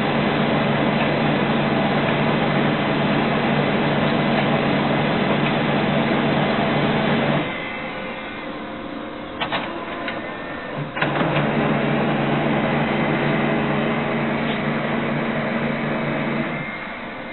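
Brother MFC-9970CDW colour laser printer's internal mechanism running with a steady hum as it goes through its wait cycle after the front cover is closed. The hum stops about seven seconds in, a couple of clicks follow, and it starts again a few seconds later before dropping away near the end.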